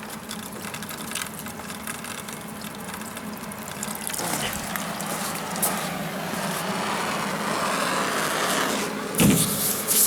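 Water running or being poured, growing louder over the second half, to cool the torch-heated sheet metal while shrinking a dent. A steady low hum sits underneath, and a loud scraping noise breaks in near the end.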